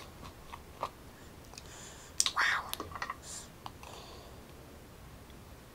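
Orange plastic screw cap twisted off a glass jar, then a metal spoon clicking and scraping against the jar as it scoops out thick shrimp paste. It comes as a string of sharp clicks, loudest and busiest about two to three seconds in, and goes quiet near the end.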